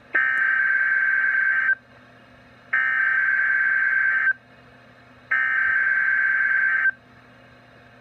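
NOAA Weather Radio SAME digital header coming through a Midland weather radio's speaker: three identical bursts of buzzy, screeching data, each about a second and a half long, with a second's pause between them. These bursts encode the alert that opens a Required Weekly Test.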